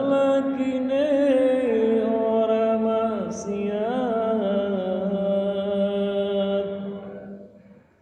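A man's solo voice chanting one long, ornamented Islamic devotional phrase in a single breath. The pitch wavers and steps downward, and the voice fades out near the end.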